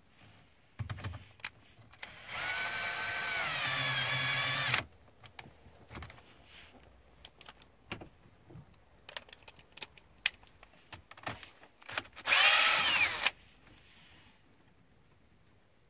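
Cordless drill/driver running twice as it drives a nut on a truck fuse-box terminal stud. The first is a steady run of about two seconds. Near the end comes a louder run of about a second whose pitch rises and falls. Light clicks and handling knocks fall between the two runs.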